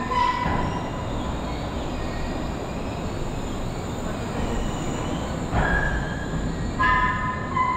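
Wuppertal Schwebebahn suspension railway train running, a steady rumble of its steel wheels on the overhead rail. Short high-pitched wheel squeals come in at the start, about five and a half seconds in, and again near the end.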